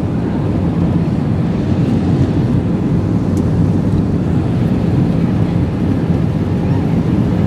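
Steady rumble of an Airbus A320's jet engines and rushing air, heard inside the cabin during the landing.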